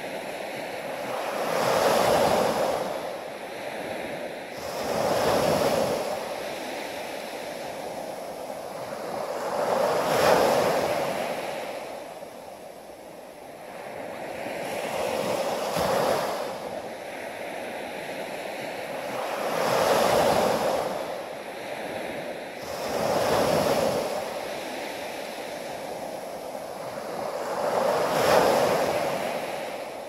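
Small waves breaking and washing up a sandy beach. The surf swells and fades about seven times, a surge every three to five seconds.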